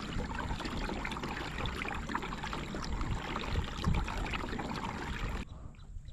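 Water splashing and trickling against a kayak's hull, with a low rumble and many small ticks, cutting off abruptly near the end.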